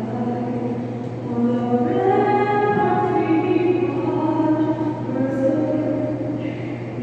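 A group of voices singing together in long held notes, over a steady low hum.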